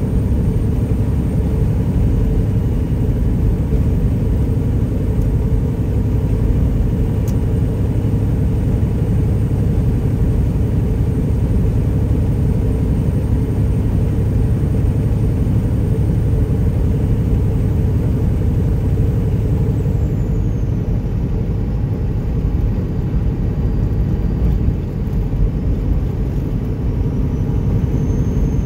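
Detroit Diesel Series 60 engine of a straight-piped Peterbilt 379 running steadily at highway cruise: an even, loud low rumble mixed with road noise, heard from inside the cab.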